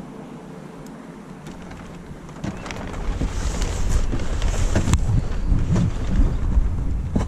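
Wind buffeting the microphone, a fluctuating low rumble that picks up about two and a half seconds in, with scattered light knocks and rustling as a wooden spar and its rigging lines are handled.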